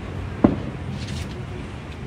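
A single distant firework boom, short and sharp, about half a second in, over a steady low outdoor rumble.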